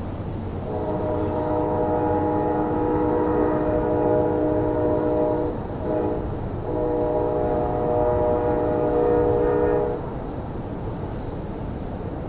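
Locomotive air horn sounding two long blasts, each a steady multi-note chord lasting a few seconds, with a short break between them, over a low steady rumble.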